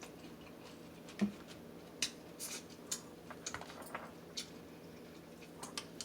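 Crab being eaten: irregular small cracks and clicks of crab shell being broken and chewed, with soft mouth sounds between them.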